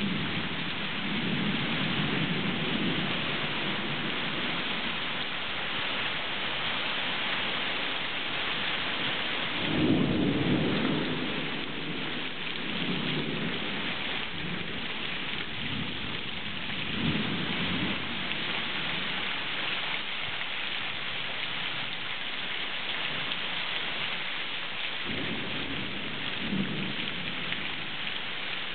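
Heavy rain pouring down steadily, with several low rolls of thunder, the loudest about ten seconds in.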